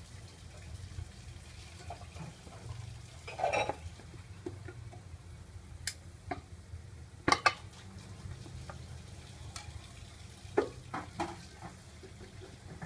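Metal tongs clinking and scraping against a stainless steel bowl while pieces of marinated goose are lifted out for the charcoal grill. A few scattered sharp clinks, the loudest about seven seconds in, over a low steady background.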